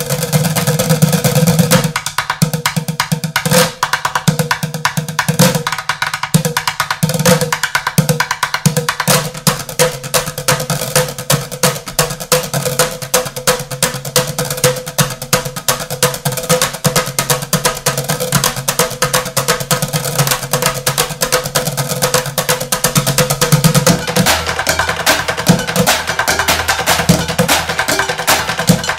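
Bucket drumming: several drummers beating drumsticks on upturned plastic five-gallon buckets in a fast, dense rhythm. About three-quarters of the way through, the sound grows fuller and deeper.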